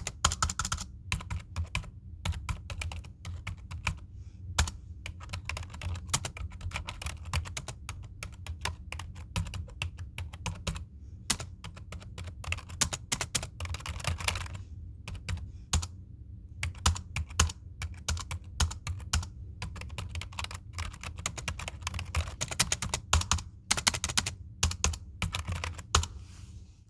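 Typing on a computer keyboard: rapid, irregular key clicks in bursts, broken by short pauses, over a steady low hum.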